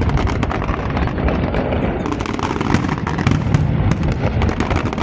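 Fireworks display going off in a dense, continuous volley: many sharp cracks and pops overlapping a steady low rumble of bangs.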